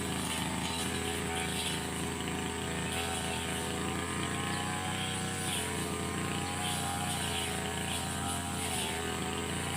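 Brush cutter engine running steadily, its pitch dipping and wavering slightly now and then.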